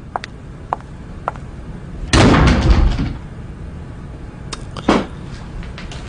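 A door shutting hard about two seconds in, with a short ringing tail, after a few faint clicks. A lighter knock follows near the five-second mark.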